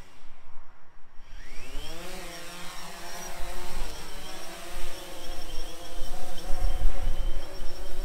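DJI Phantom 3 Standard quadcopter's motors and propellers spinning up for takeoff: a whine that rises in pitch about a second and a half in, then settles into a steady buzzing hover. A low rumble of wind on the microphone comes in near the end.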